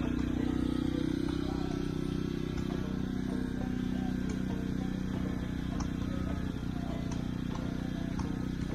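An engine running steadily, a constant low hum with a few faint clicks over it.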